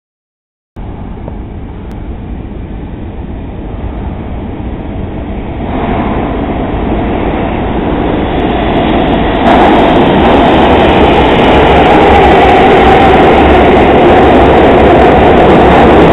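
R142/R142A New York City subway express train approaching through the tunnel and running through the station without stopping, a steady rumble of wheels on rail that grows louder as it nears and stays loud as the cars pass.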